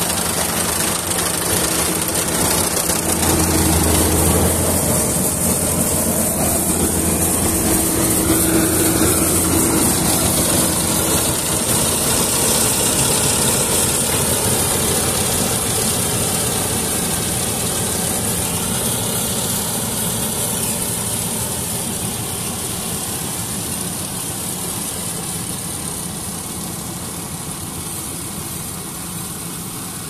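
Yanmar crawler rice combine harvester running steadily while cutting rice, its diesel engine and threshing machinery giving a continuous mechanical drone. The sound fades gradually over the second half as the machine moves away.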